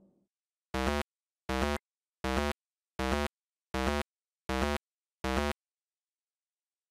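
8-bit chiptune sound effect: seven short, identical synthesized blips about three-quarters of a second apart, the game-style footsteps of a walking pixel-art elephant. They stop about five and a half seconds in.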